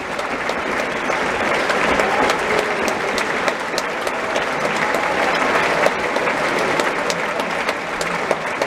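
Large theatre audience applauding steadily, with sharp individual hand claps close by.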